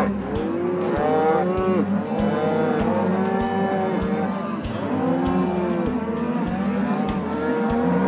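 A herd of beef cows and calves bawling: many overlapping moos, each rising and falling in pitch, one after another without a break.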